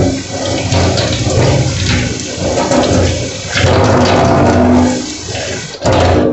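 Kitchen tap running hard into a stainless-steel sink, splashing as a red plastic container is rinsed under the stream; the water noise stops abruptly at the very end.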